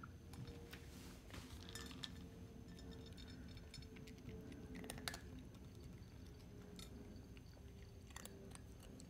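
Faint crunching of a cat eating dry kibble, with scattered small clicks of kibble against a glass pie dish.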